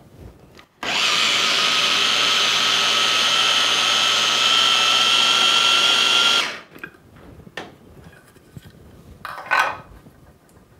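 Electric mini chopper running for about five and a half seconds, its blades blending frozen raspberries, sugar and milk into instant ice cream: a steady motor whine that rises slightly in pitch, starting about a second in and cutting off sharply. A few light knocks follow, with a sharp one near the end.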